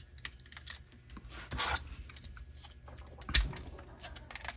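Hard plastic toy parts clicking and snapping as claw-arm pieces are pushed onto a transforming robot toy's fists, with a short scraping rustle about a second and a half in and the loudest snap a little past three seconds.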